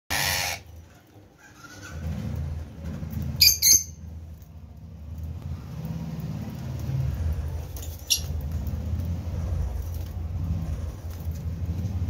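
Green parrot chick giving short, high squeaks while it is hand-fed from a syringe: two quick ones about three and a half seconds in and another about eight seconds in. A steady low rumble runs underneath.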